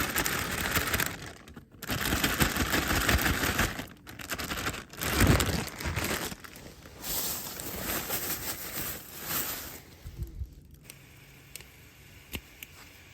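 Crinkling, rustling handling noise in bursts of a second or two, stopping about ten seconds in, followed by a few faint clicks.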